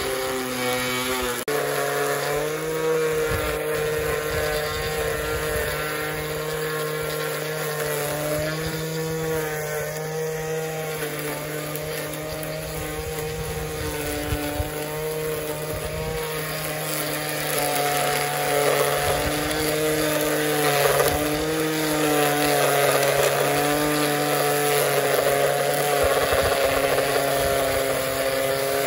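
Battery-powered cordless string trimmer running continuously as it edges grass along a concrete sidewalk: a steady motor whine whose pitch shifts every few seconds as the line meets the grass.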